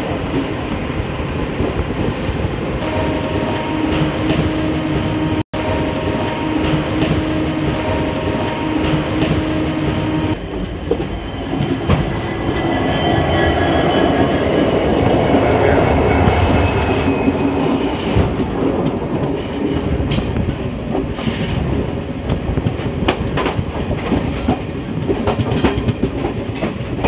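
Indian Railways train running, heard from on board: a steady rumble with wheels clicking over rail joints and a few held squealing tones. The sound cuts out for an instant about five seconds in, and there is a louder rush in the middle beside a diesel locomotive's bogie.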